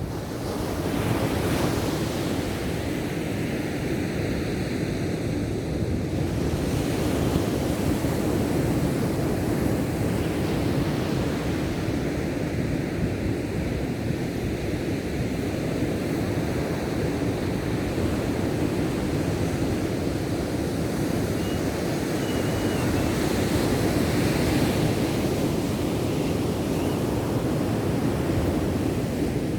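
Ocean surf breaking and washing continuously, with wind on the microphone. It swells louder about a second in and again near the end.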